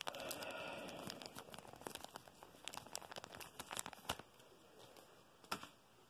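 Faint crinkling of plastic for about the first second and a half, then scattered small sharp clicks, from diamond-painting drills and the canvas's plastic cover film being handled.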